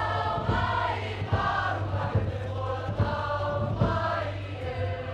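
A large mixed group of Cook Islands performers singing together in harmony, accompanied by ukuleles strummed in a steady beat.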